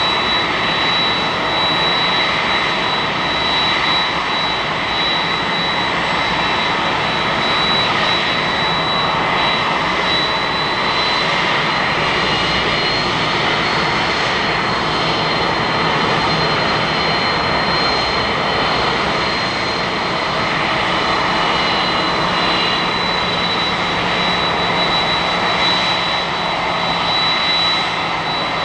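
Boeing 767-300ER jet engines running steadily: a constant high whine over an even rushing noise, with no rise or fall.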